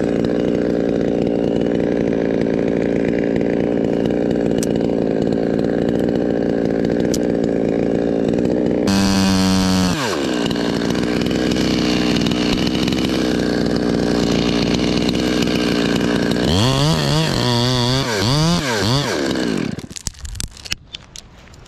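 Gas chainsaw running at full throttle as it cuts through a tree trunk; about halfway through the throttle drops off briefly before the saw opens up again. Near the end it is revved up and down several times, then cuts off suddenly.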